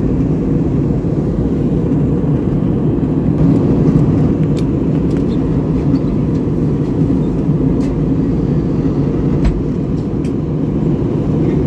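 Steady low roar of a jet airliner in cruising flight, engines and rushing air heard inside the cabin, with a few faint ticks.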